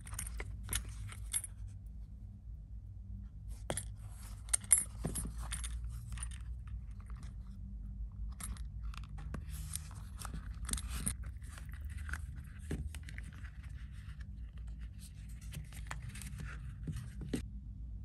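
Metal sandal buckle clinking and an oiled-leather strap rustling as the strap is worked through the big gold buckle of a Birkenstock Madrid Big Buckle sandal: clusters of small clicks and scrapes with short pauses, the sharpest click a little under five seconds in, over a low steady hum.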